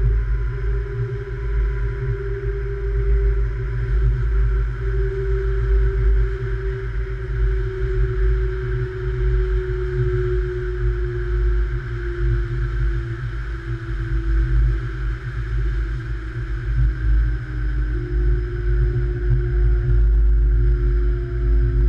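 Light-rail train running along its track: a steady low rumble with a motor whine that slowly drops in pitch, and a new whine tone joining near the end.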